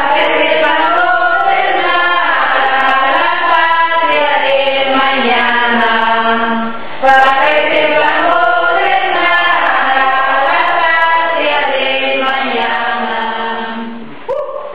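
Several voices singing a song together, fading out near the end.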